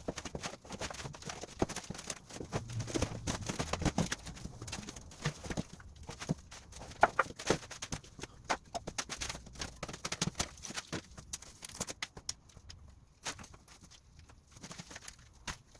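Irregular clicks and knocks, some sharp, with scraping in between, at an uneven pace: the sound of hand work with tools.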